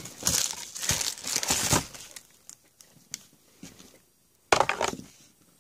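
Empty cardboard card box being squashed and folded flat by hand: crinkling and rustling in dense bursts over the first two seconds, a few light taps, then another short crinkling burst near the end.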